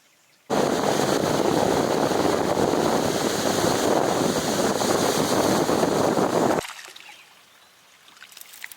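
Loud, steady rush of wind and water, with no engine note, that starts and stops abruptly and lasts about six seconds.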